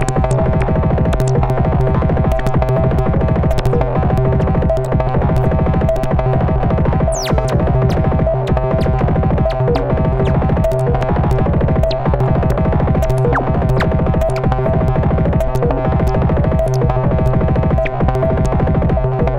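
Analog modular synthesizer playing a repeating step-sequenced pattern driven by a Klee shift-register sequencer: a steady low note held underneath a fast, uneven run of short clicky electronic hits.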